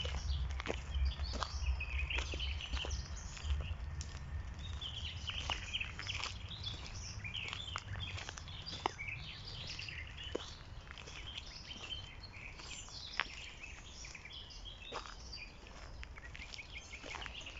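Small birds chirping and twittering, many short calls one after another, with scattered light clicks and a low rumble that is strongest in the first few seconds.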